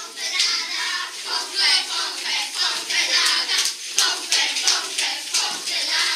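Many children's voices at once, high calls and chatter overlapping, with rustling and scuffling from a group moving fast across the floor.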